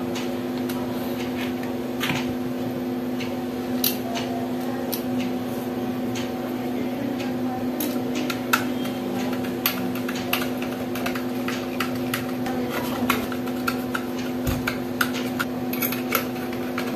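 Scattered small clicks and ticks of screws being driven with a screwdriver to fasten an SSD into a laptop hard-drive caddy, over a steady hum.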